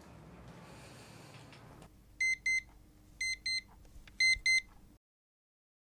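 Smartphone alarm beeping: three pairs of short beeps, about a second between pairs, starting about two seconds in, then cutting off suddenly.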